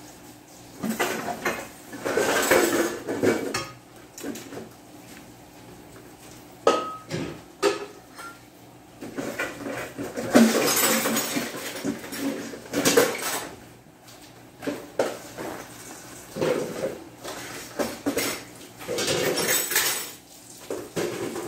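Dishes, pots and utensils clattering and clinking at a kitchen sink in irregular bursts, with a short ringing clink about seven seconds in.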